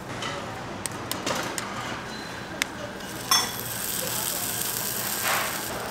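Metal bungeoppang irons and utensils clicking and clinking: a run of sharp clicks, then a louder ringing clink a little over three seconds in, over a steady sizzling hiss of batter cooking in the hot molds.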